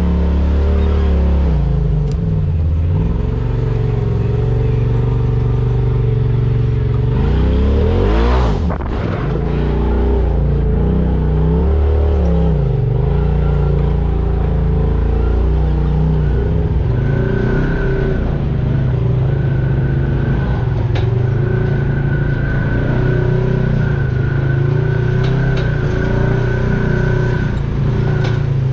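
Off-road vehicle engine running on the trail, its pitch rising and falling as it revs, with one sharp rev about eight seconds in. Past the middle a steady high whine joins it.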